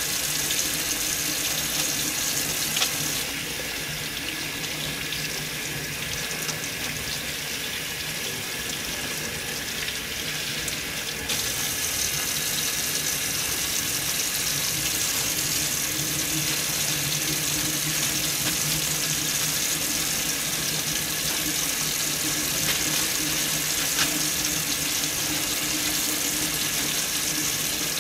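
Water running steadily from a gooseneck tap into a stainless steel sink while hands are washed under the stream. The flow goes a little softer for several seconds, about three seconds in.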